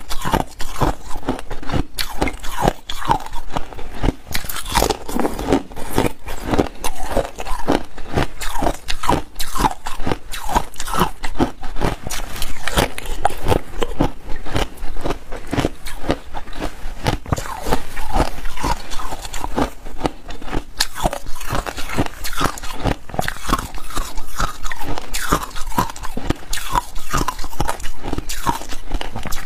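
A person biting and chewing hard, clear ice cubes, close-miked: a dense, continuous run of sharp crunches and cracks.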